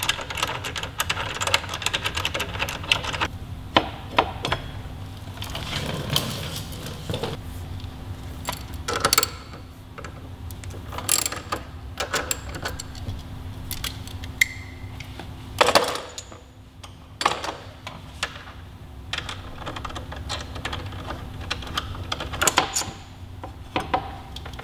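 Socket ratchet clicking in short irregular runs as the 12 mm mounting bolts of the front brake calipers are undone, with sharper metallic clinks and knocks of the bolts and tools in between.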